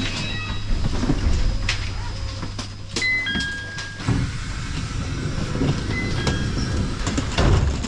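Commuter train car standing at a station platform: its steady low hum cuts off about four seconds in, a few short chime tones sound just before, and the sliding doors open.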